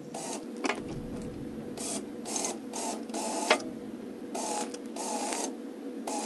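3,500 lb electric winch on a trailer crane dragging a large log in on its cable: a steady motor hum with repeated short rasping surges, roughly two a second.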